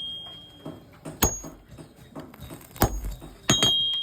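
Three hammer blows on steel at an anvil, each a sharp strike with a high metallic ring. The last blow rings on longest.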